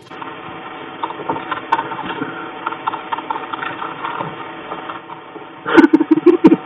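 Computer keyboard keys clicking irregularly as someone types, then a quick run of five or so much louder knocks near the end.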